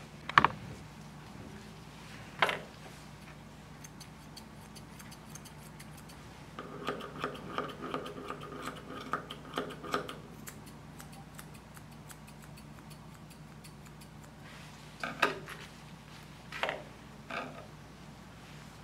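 Grooming scissors snipping the hair around a small dog's front paw in a quick run of cuts, with a light metallic ring, over a steady low hum. A few separate short, sharp sounds stand out, the loudest about half a second in and a cluster near the end.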